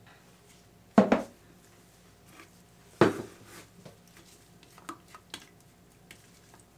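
Two loud knocks about two seconds apart, a hard plastic soap-batter pitcher set down on and knocked against the marble countertop, followed by a few lighter clicks and taps of plastic utensils.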